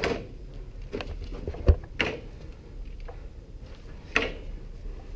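A handful of short, sharp knocks and clicks at uneven intervals, the heaviest and deepest about one and a half seconds in.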